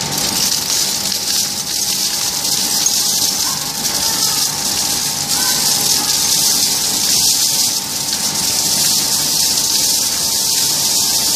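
Vibratory scrap charging feeder for a melting furnace running: a steady loud hiss and rattle of scrap being shaken along, over a constant machine hum.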